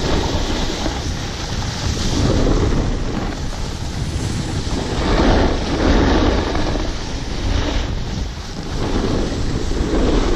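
Wind rushing over an action camera's microphone during a fast run down a groomed snow slope, mixed with the hiss of edges sliding on packed snow, swelling several times as the rider turns.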